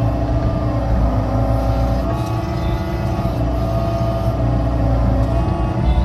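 Excavator's diesel engine running steadily while digging, with a pump whine over it; the engine note dips and recovers a few times as the hydraulics take load.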